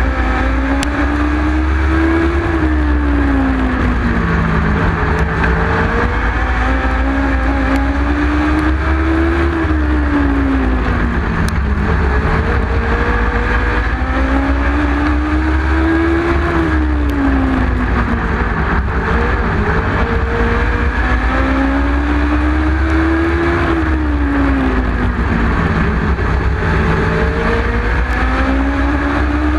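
Legend car's Yamaha motorcycle engine heard on board at race pace: the revs climb along each straight and drop off into each turn, about every seven seconds, over a heavy low rumble.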